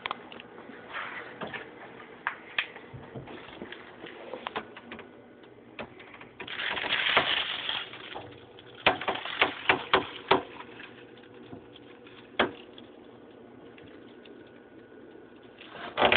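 Handling noise from a handheld phone while a kitchen cabinet is searched: scattered light clicks and knocks, a rustle about six and a half seconds in, and a quick run of sharp clicks around nine to ten seconds.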